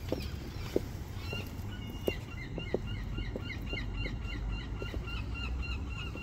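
A flock of geese honking, many short overlapping calls that grow busier about a second and a half in. A few sharp knocks stand out over a steady low rumble.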